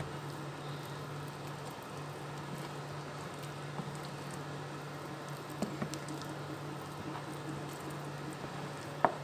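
A plastic spatula stirring thick, lumpy batter in a ceramic bowl: soft wet squishing with a few sharp taps of the spatula against the bowl, the loudest near the end, over a steady low hum.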